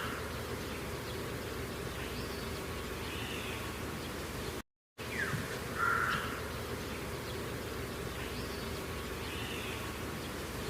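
Countryside ambience: a steady insect buzz with a few short bird calls. The sound cuts out completely for a moment just before the middle.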